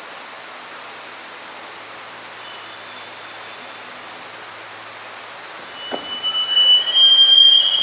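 Steady background hiss, then about six seconds in a loud, high-pitched squeal that wavers in level and lasts nearly two seconds.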